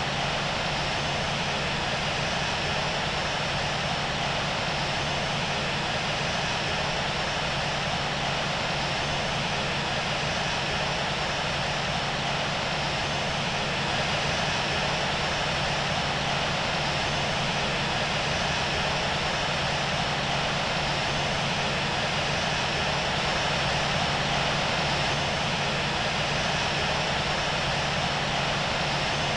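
Steady cabin noise of a Boeing 737-700 with its CFM56-7B turbofans running: an even rush of engine and air noise over a constant low hum.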